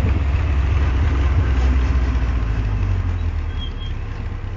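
Lotus Seven's engine running with a steady low drone as the open car drives along, the sound easing off a little near the end.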